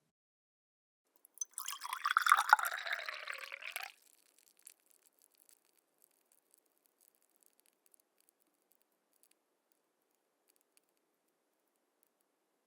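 Liquid poured into a glass in one short stream lasting about two and a half seconds, stopping abruptly, followed by a few faint drips.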